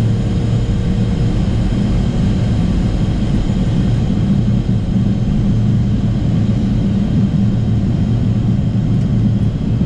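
Inside the cockpit of a Learjet 45XR rolling out and taxiing after landing: its Honeywell TFE731 turbofans and the airframe give a steady, loud low rumble, with faint steady high-pitched whine tones above it.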